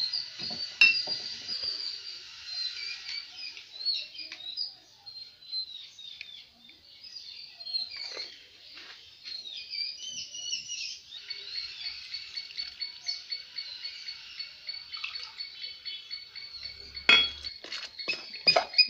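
Birds chirping and singing, with many quick rising and falling notes and, from about halfway, a run of evenly repeated high notes. A few light clinks of a metal pot, a sharp knock near the end, then a quick run of clicks as a hand starts mixing flour in an aluminium pot.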